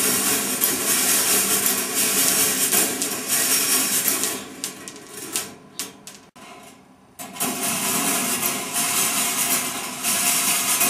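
Marbles rolling along the stainless steel wire rails of a rolling ball sculpture: a steady rolling hiss with ringing metal tones. Midway the rolling fades into a few clicks as marbles knock together and settle, then the rolling starts again abruptly.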